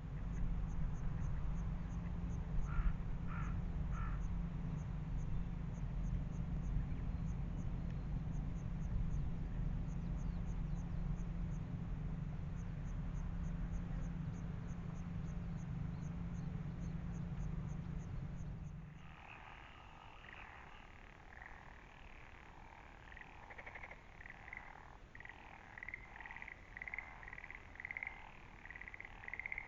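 A steady low rumble with a few short calls about three seconds in, cutting off abruptly about two-thirds of the way through. Then frogs call in a chorus of quick, repeated croaking pulses that grow louder toward the end.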